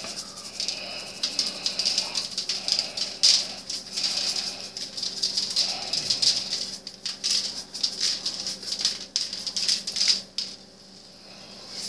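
Spice shaker of dried minced garlic being shaken hard and repeatedly, the flakes rattling inside; the shaking stops near the end.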